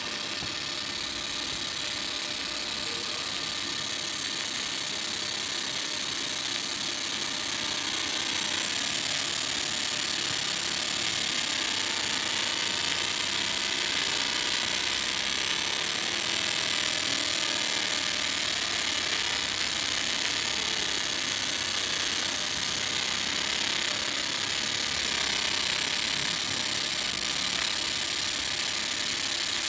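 Fiber laser marking machine engraving a metal plate: a steady high-pitched hiss from the pulsed beam ablating the metal. It starts abruptly and holds at one level throughout.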